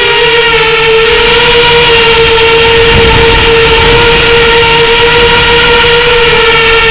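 FPV quadcopter's electric motors and propellers whining at a nearly steady pitch, loud and unbroken throughout.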